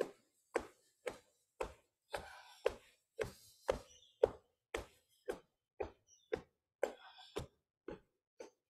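Short sharp knocks in a steady rhythm, about two a second, from a person doing a fast repeated aikido drill on a small wooden board.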